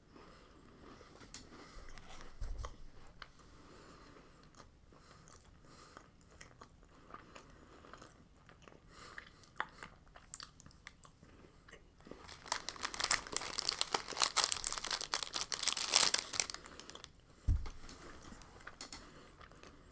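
A person biting and chewing a soft strawberry-filled cookie bar close to the microphone, with quiet mouth sounds and clicks. A burst of louder crackling runs for about four seconds roughly two-thirds of the way through, and there are a couple of soft low thumps.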